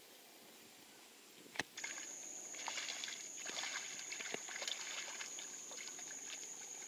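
Near quiet, then a sharp click about a second and a half in, after which small irregular splashes and sloshes of water play beside a fishing kayak over a steady high-pitched whine.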